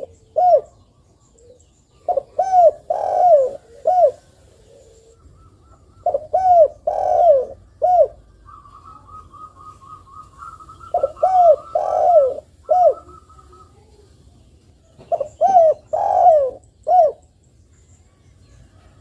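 Spotted dove cooing in repeated phrases of about four low notes, one note drawn out longer than the rest, a new phrase roughly every four seconds.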